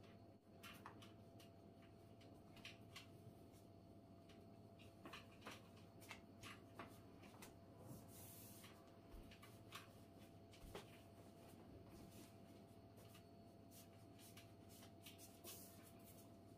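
Faint rubbing, rolling and light taps of a long thin wooden rolling pin working a sheet of baklava dough on a floured wooden table, with scattered soft clicks and a couple of brief rustles as the dough sheet is wound and unrolled. A low steady hum lies underneath.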